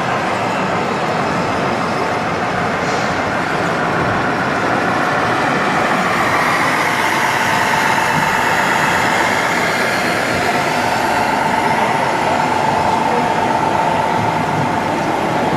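Steady exhibition-hall din: radio-controlled model trucks running on a model course amid crowd chatter, with a faint steady tone coming in about six seconds in.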